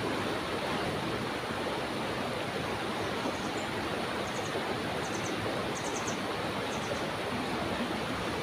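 Fast-flowing stream rushing steadily, the water churning white where it spills over a drop. A few faint, high chirps come in short groups from about three to seven seconds in.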